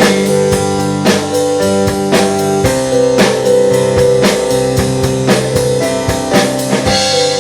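Worship band playing an instrumental passage between sung lines: sustained chords over a steady drum beat of about two strokes a second.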